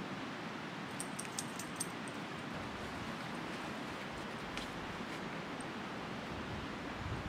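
Steady rushing of the Provo River close by, with a few light, sharp clicks from about one to two seconds in.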